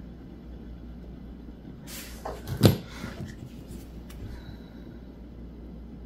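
Hands handling craft materials: a short rustle about two seconds in, then a single sharp knock, like a plastic tool set down on a cutting mat, and a few faint small clicks after.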